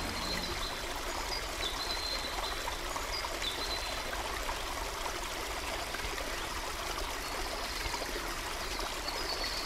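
Small brook near its source trickling steadily, with a few short high chirps over it.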